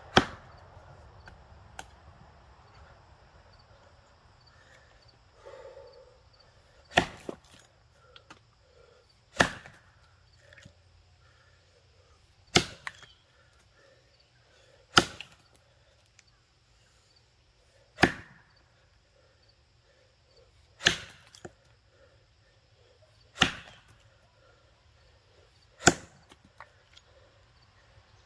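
Axe chopping into a box elder log: a single strike at the start, then after a pause of several seconds eight more strikes at a steady pace, about one every two and a half to three seconds.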